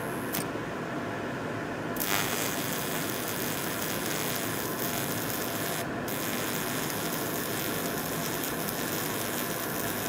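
Stick (MMA) welding with a 2.5 mm electrode at about 80 amps: the arc strikes about two seconds in and then burns with a steady hiss, over the constant rush of a fume extractor fan.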